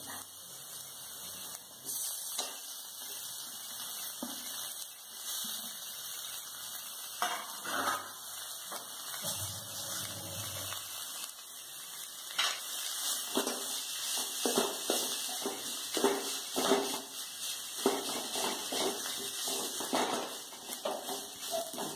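Steel spoon scraping and knocking against a steel kadai as boiled, mashed potato is stirred and mashed into fried onion masala, over a steady hiss. The scraping comes in quick repeated strokes through the second half.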